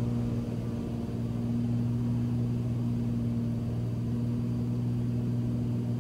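Cessna Turbo 206's turbocharged six-cylinder engine and propeller running steadily under climb power, a constant low drone heard from inside the cabin.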